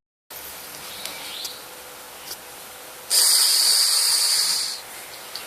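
A sleeping person snoring. About three seconds in comes one loud hissing breath, under two seconds long, that sounds like a bus's air brake releasing.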